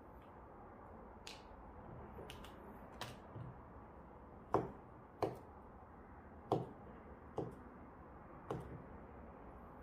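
Chef's knife slicing fish-cake sticks on a cutting board: about ten uneven knocks of the blade striking the board, the loudest around the middle.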